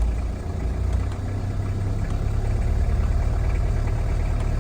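Cold 1991 Toyota Land Cruiser Prado turbo-diesel engine idling steadily, its note shifting about a second in as the hand idle control is adjusted.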